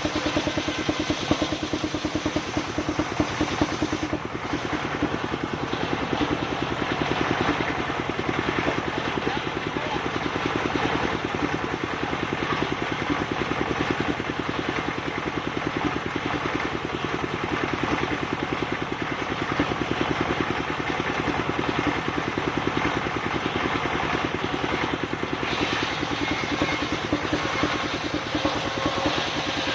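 Engine of a machine-powered wood sawmill running steadily with a fast, even pulse.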